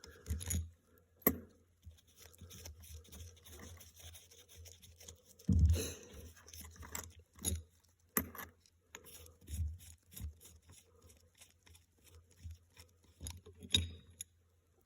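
Scattered small clicks, scrapes and knocks of hand tools and metal parts while a Mikuni SBN carburetor is being taken apart, with a louder knock about five and a half seconds in.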